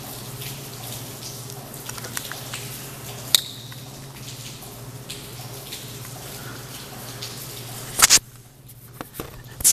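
Hands handling an RC truck's plastic chassis and pulling out its 2S lipo battery: scattered small clicks and rustles, one sharp click a little past three seconds in, and two loud close scraping bursts about eight seconds in as the battery comes free, over a steady low hum.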